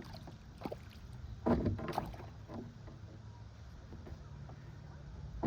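Knocks and rattles of handling in a fishing kayak, the loudest cluster about a second and a half in, over a steady low rumble.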